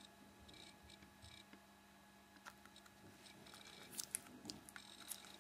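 Faint handling noise of a small plastic camcorder turned over in the fingers: scattered light clicks and short scratchy rubs, the sharpest clicks about four seconds in, over a low steady hum.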